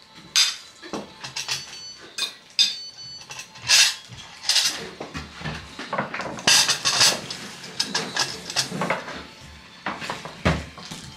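Clinks and knocks of cutlery and dishes at a meal table: a quick irregular string of short sharp sounds, a few of them ringing briefly.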